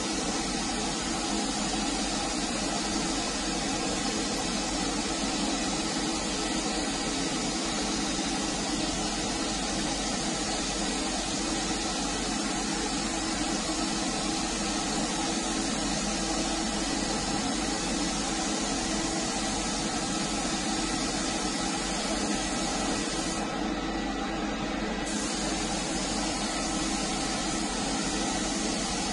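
Compressed-air gravity-feed spray gun hissing steadily as it sprays paint in passes over a panel. Near the end the high part of the hiss briefly thins.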